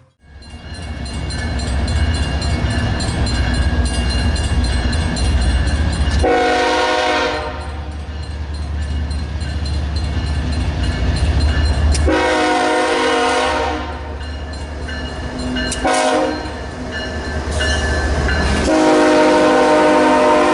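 Diesel locomotive running with a steady low rumble, sounding its horn in the grade-crossing pattern: long, long, short, long.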